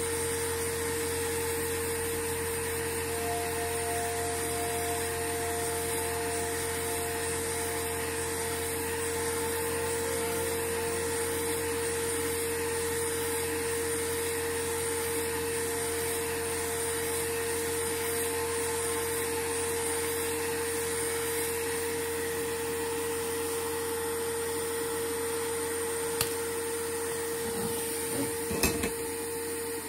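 A small electric motor whirring steadily, with a constant hum tone, and a few clicks near the end before it cuts off.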